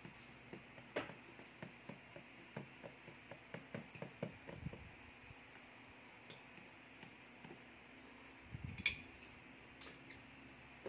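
Metal forks clinking and scraping on plates while pasta is eaten, in scattered light clicks that are frequent for the first few seconds and then thin out. About nine seconds in there is one louder knock.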